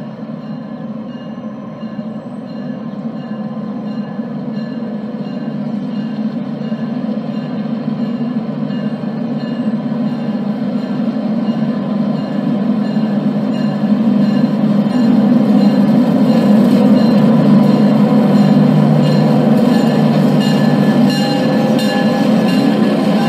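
Diesel locomotive running at low speed in the street, its steady engine drone growing louder as it approaches and is loudest over the last several seconds as it passes close by.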